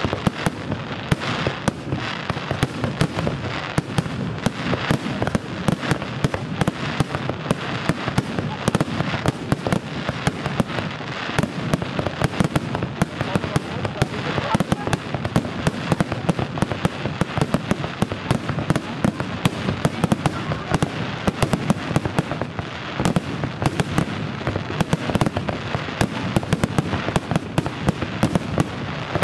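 Aerial fireworks bursting in a dense, continuous barrage: many sharp bangs and crackles a second, with no let-up.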